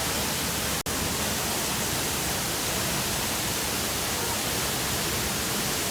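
Waterfall rushing, a steady dense roar of falling water heard close up. It cuts out for an instant about a second in.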